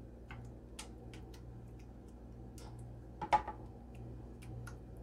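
Black plastic spoon tapping and scraping on the bottom of a glass casserole dish while spreading meat sauce: scattered light clicks, with one sharper knock a little past three seconds in. A low steady hum runs underneath.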